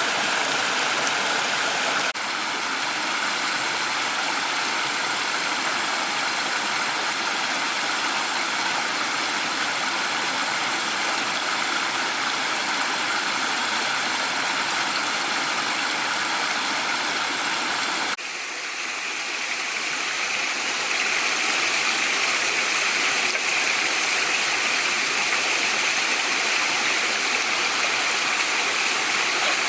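Rushing water, a steady noise that changes character abruptly twice, about two seconds in and again about eighteen seconds in.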